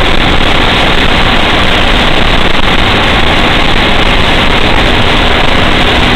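Loud, steady engine and road noise of an old fire truck, heard from inside its cab while driving.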